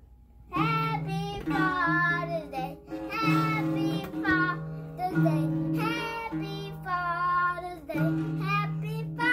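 A child singing with an acoustic guitar strummed along underneath. The singing starts about half a second in and moves through held, wavering notes.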